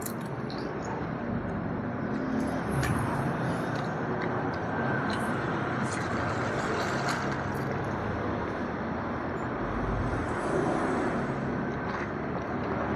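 Steady background rumble and hiss, with a few faint clicks of tableware.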